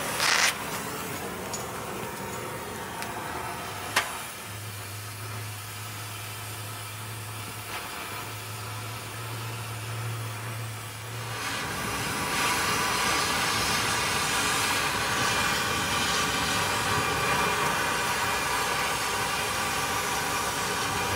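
Oxy-acetylene torch hissing against the rusted steel of a bus's airbag support, with a sharp pop near the start. About eleven or twelve seconds in the hiss turns louder and rougher as the torch begins cutting and throwing sparks.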